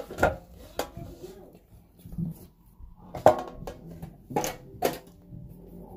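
Metal tin lunchbox being closed and handled: several sharp knocks and clanks, the loudest about three seconds in.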